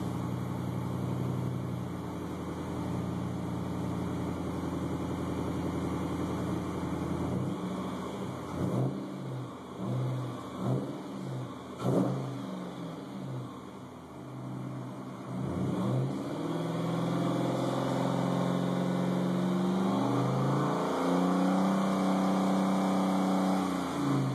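2008 Jeep Grand Cherokee SRT8's 6.1-litre HEMI V8 exhaust, through a Magnaflow muffler with the resonator deleted. It idles steadily, then from about seven seconds in is revved in several quick blips. It is then held at raised revs, steps higher around twenty seconds in, and drops back near the end.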